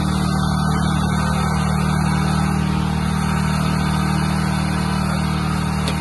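A vehicle engine idling steadily, a low, even hum that does not change.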